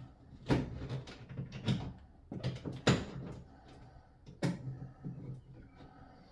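A string of sharp knocks and clunks from hard objects being handled and set down, with the loudest about three seconds in.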